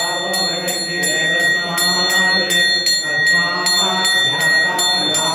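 Brass temple bell rung steadily and rapidly, about two to three strokes a second, as during an aarti lamp offering, with music underneath.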